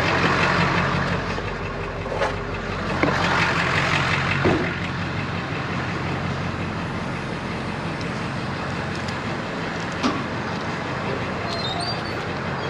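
Tow truck's engine idling with a steady low drone, with a few short clicks and knocks over it.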